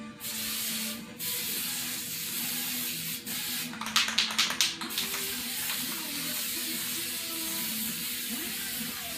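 Aerosol spray can spraying chrome paint onto a bicycle frame in long, steady hissing passes, with a short break about a second in. About four seconds in comes a brief burst of sharp rattling clicks.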